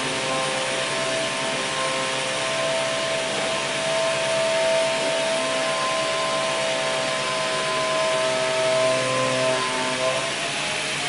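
Machinery running steadily: a loud whirring hiss with several steady whining tones that waver slightly in pitch.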